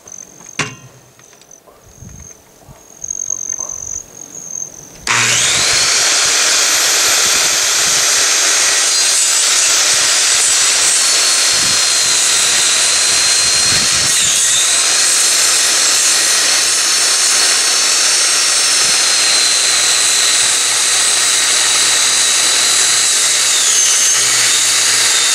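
Corded circular saw starting about five seconds in and cutting lengthwise through a thick wooden landscaping timber, running loud and steady with a high whine that dips briefly in pitch twice. Before it starts, a few light clicks and knocks of handling.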